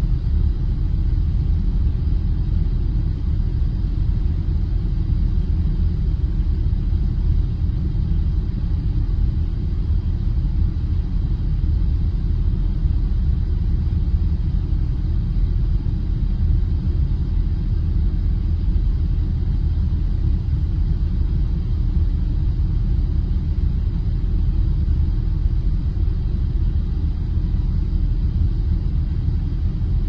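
Steady, unchanging low rumble of a car engine running, with most of the sound deep and bass-heavy.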